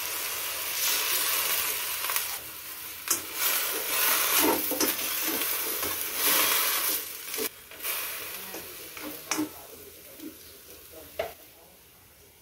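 Broccoli florets and carrot slices sizzling in a hot honeycomb-textured steel wok with a little water, stirred with a spatula that clatters and scrapes against the pan every second or so. The sizzling fades toward the end.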